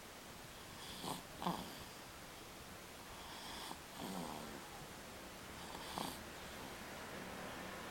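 A pet snoring faintly, in a few short, irregular snores: two close together about a second in, then single ones a few seconds apart.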